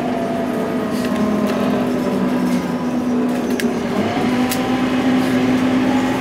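Scania OmniLink single-deck bus heard from inside the passenger saloon while on the move: a steady engine and drivetrain hum with a whine that sinks slightly in pitch, then climbs again about four seconds in. A few faint clicks are heard along the way.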